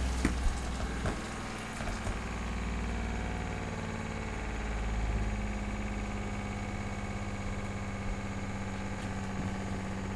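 RV fresh-water pump running steadily with a low hum, now feeding through a newly installed accumulator tank charged to about 34 PSI to smooth out its surging.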